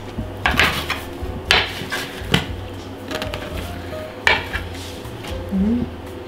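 Kitchen clatter as dough is cut and weighed into portions: four sharp knocks and clinks of utensils on the worktop, spread over the first four and a half seconds.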